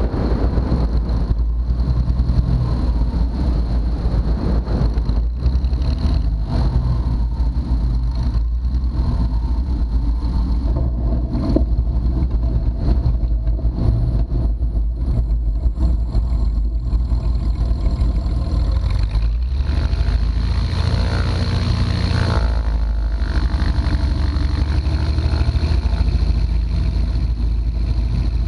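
The Continental O-300 six-cylinder engine and propeller of a 1957 Cessna 172 running in a steady drone, with a brief shift in the engine note about twenty seconds in.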